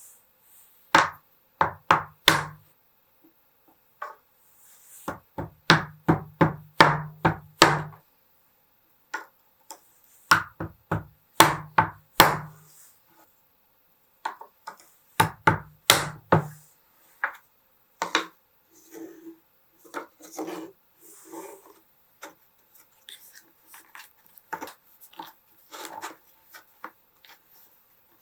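Wooden parts of a router-table kit being knocked together: four runs of quick, sharp knocks, each of several strikes, then lighter clicks and rubbing as the parts are handled in the second half.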